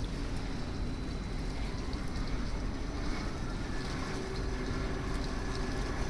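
Steady low rumble and hiss of a container terminal's ambient noise, with a faint rising whine about two seconds in.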